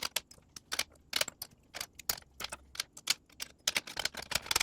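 Small steel hand tools clicking and clinking as they are handled, a quick uneven run of sharp metal ticks, several a second.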